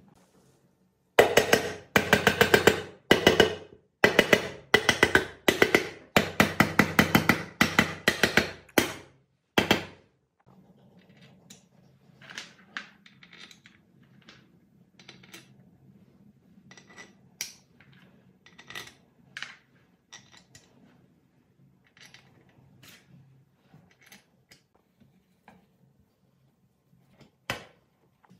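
A quick run of loud, ringing hammer taps on metal begins about a second in and stops about ten seconds in, seating the aluminium crankcase cover onto a small four-stroke generator engine block. Lighter metallic clicks and clinks follow as the cover bolts are set into place, with one sharper click near the end.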